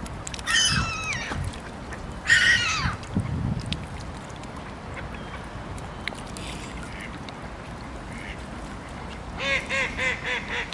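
Waterfowl calling: two short calls that fall in pitch in the first three seconds, then a quick run of about six short nasal calls at roughly four a second near the end.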